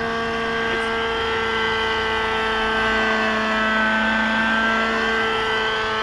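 Large fuel-engined radio-controlled helicopter hovering: a steady, even engine note with its rotor, the pitch holding nearly constant. It is running smoothly after a rebuild.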